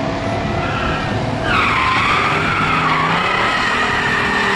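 Drag-racing muscle car engine running, then tyres squealing in a long, wavering screech from about a second and a half in, cutting off suddenly near the end.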